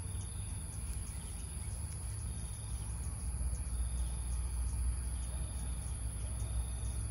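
Steady high-pitched drone of insects calling in the grass, over a continuous low rumble.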